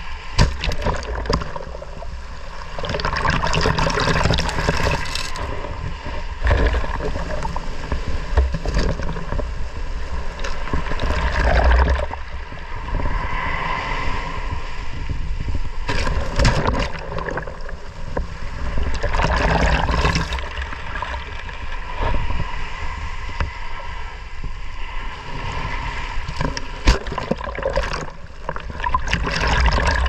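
Small sea waves washing up the sand and right over the microphone: foam fizzing and water sloshing and gurgling, swelling and easing every few seconds as each wave surges in and draws back.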